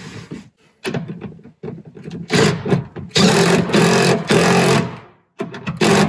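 Cordless drill running in several short bursts, starting about two seconds in, as it drives and tightens the bottom bolt of a seat-belt anchor. Another burst comes near the end.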